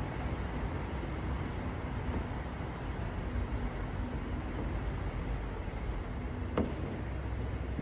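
Steady low rumble of outdoor urban background noise with a faint hum, and one sharp click near the end.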